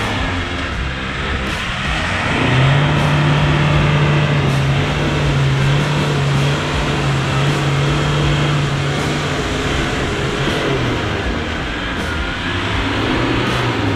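Land Rover Defender engine working under load as it crawls through a deep mud rut, rising in pitch a couple of seconds in, held steady, then easing off about ten seconds in.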